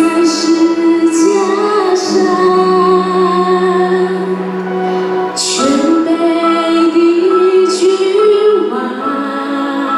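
A woman singing a Mandarin worship song into a microphone over steady backing music, holding long notes with sharp 'sh' sounds on the words.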